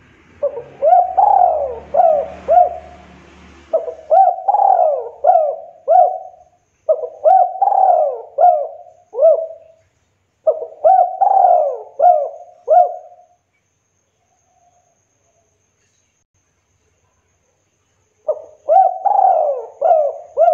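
Spotted dove cooing: phrases of several quick, down-slurred coos, repeated one after another, then a pause of about five seconds before another phrase starts near the end.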